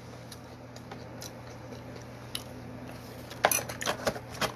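Close-up eating sounds: a cluster of sharp crackling clicks about three and a half seconds in, over a steady low hum.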